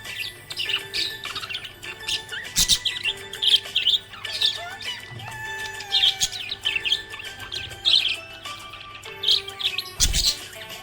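Budgerigar (budgie) chirping and warbling in quick, repeated bursts of high notes, with two sharp knocks.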